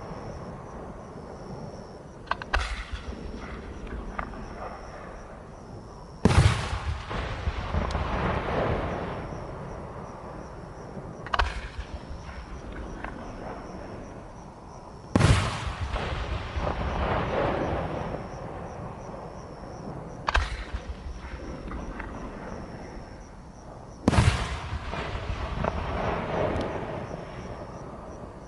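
Aerial firework shells: a sharp launch thump from the mortar, then about four seconds later a loud burst overhead, followed by a few seconds of crackling rumble and echo. This happens three times, about nine seconds apart.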